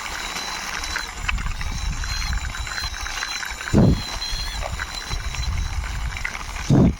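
Toy wheel loader being pushed along by hand, its plastic wheels rolling and rattling with small clicks over a steady rumble. Two brief, loud thumps come about four seconds in and again near the end.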